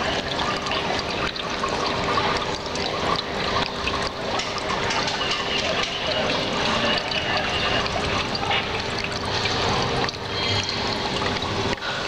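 Tabletop decorative fountain: water trickling and splashing steadily from a spout into a small resin basin and spilling over its rim, with a steady hum underneath.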